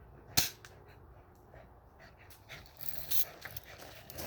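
A dog panting in short quick breaths from about two seconds in, after a single sharp snap about half a second in.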